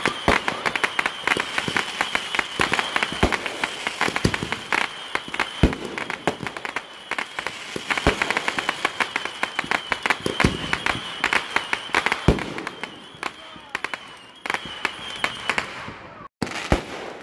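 Fireworks going off: dense crackling and popping of bursting shells, with a louder bang every couple of seconds. A steady high-pitched tone runs underneath and stops near the end, just before the sound briefly cuts out.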